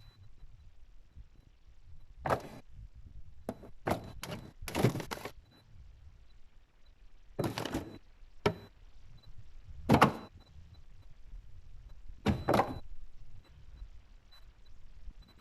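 Things being handled in a refrigerator, with a door or drawer and food containers being moved and set down: irregular knocks, thuds and short scrapes, the loudest about ten seconds in.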